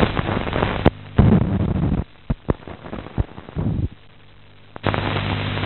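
Worn optical film soundtrack: a noisy hum broken by sharp pops and clicks, dropping to faint crackle for about three seconds in the middle before the hum comes back.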